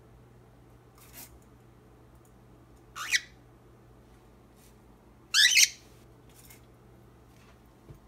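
A cockatiel gives two loud, harsh calls a little over two seconds apart, the second longer, after a faint call about a second in. A steady low hum runs underneath.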